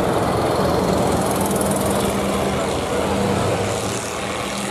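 Engines of demolition-derby combines running with a steady drone, which dips briefly past the three-second mark and then picks up again.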